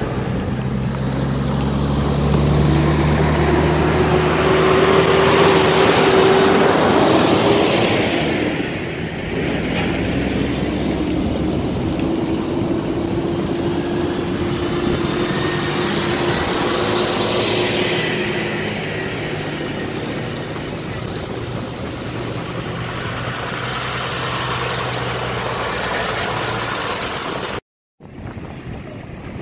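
A convoy of military trucks driving past one after another: engines running and tyres on the road swelling and fading as each truck passes, with a steady whine from a drivetrain. The sound cuts out briefly near the end.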